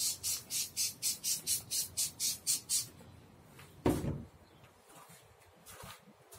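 Trigger spray bottle pumped rapidly, about four hissing squirts a second for roughly three seconds, spraying foaming anti-rain treatment onto a car windshield. A single knock follows about a second later, then a faint brief hiss near the end.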